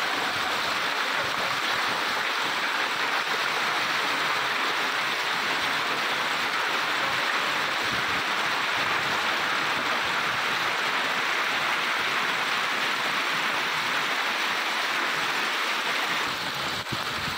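Heavy hail and rain driven by strong gusting wind: a steady, dense rushing downpour.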